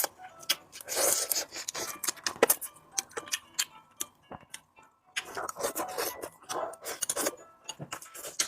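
Close-miked eating sounds from a bowl of spicy pork rice: sticky, crackly chewing and a utensil scraping the bowl, in bursts with a lull of about a second near the middle.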